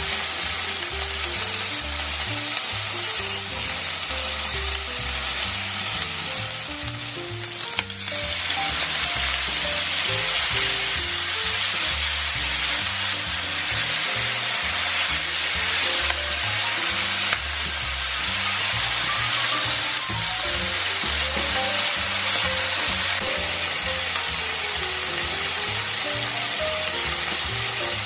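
Sliced meat and leeks sizzling in hot oil in a frying pan while being stirred. The sizzle grows louder about eight seconds in. Background music plays throughout.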